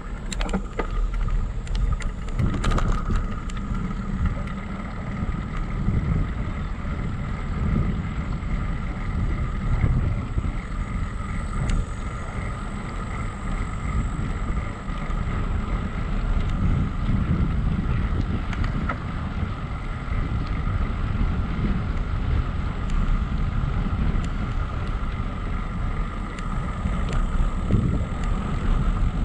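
Wind buffeting a handlebar-mounted camera's microphone while cycling, with a steady faint whine underneath. A few sharp rattles in the first couple of seconds as the bicycle rolls over brick pavement.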